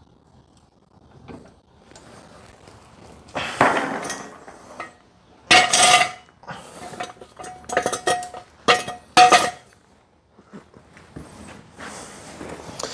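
Floor jack being pumped to lift a car: a run of irregular metallic clanks from the jack and its handle, several of them ringing on the same note.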